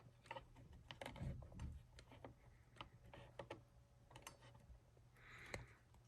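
Faint, irregular clicks and taps, several each second.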